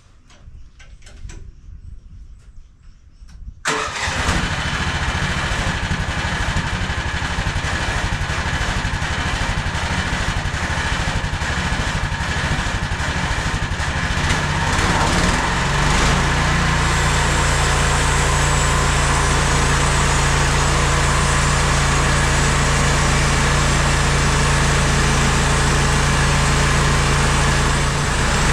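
Sawmill engine starting with a sudden catch about four seconds in, then running steadily. About fifteen seconds in it speeds up to a higher, steady running speed.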